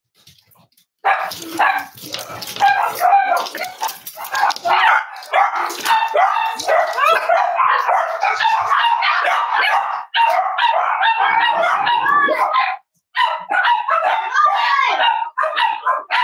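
Cavalier King Charles spaniels barking and yipping in rough play, starting about a second in and going on almost without a break, with a brief pause near the end.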